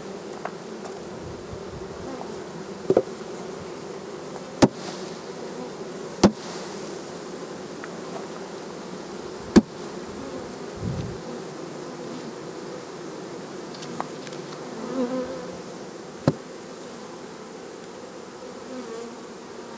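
A mass of honey bees buzzing steadily around an open, crowded hive, with about six sharp knocks now and then, the loudest about ten seconds in, as the wooden hive boxes and frames are handled.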